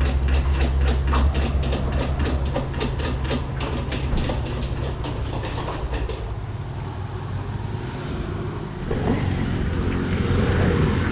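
A motor vehicle running, with a steady low rumble and, for about the first six seconds, a fast even clicking of about three or four clicks a second.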